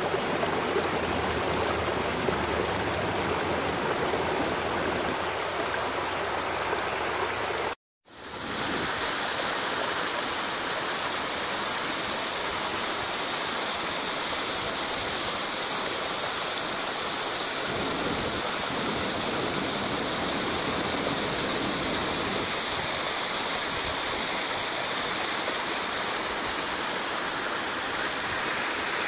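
Small mountain creek rushing and splashing steadily over rocks in shallow cascades. The sound drops out completely for a moment about eight seconds in, then comes back.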